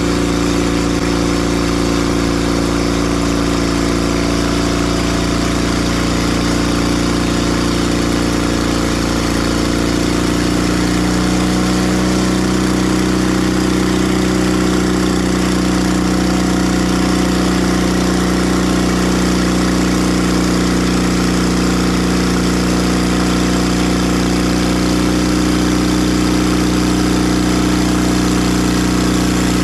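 Timber Harvester bandsaw mill running with its engine going steadily over a wide hiss. The engine's note shifts about ten seconds in and then holds steady again.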